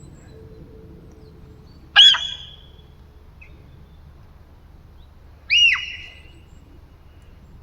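A deer giving two short, high-pitched squealing calls about three and a half seconds apart, each rising and then falling in pitch and trailing off with a brief echo.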